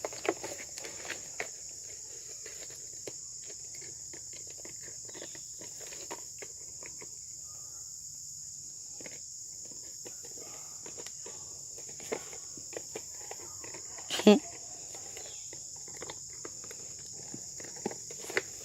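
Steady high-pitched insect chorus, with scattered light taps and scrapes and one brief louder pitched sound about fourteen seconds in.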